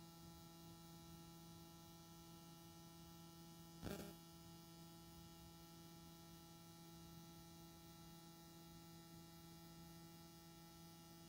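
Near silence with a steady electrical hum made of several fixed tones, left where the recording's sound dropped out through an audio fault. One brief click about four seconds in.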